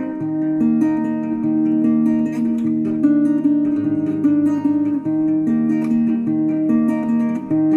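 Background music on a plucked string instrument: a steady run of picked notes over a held lower line.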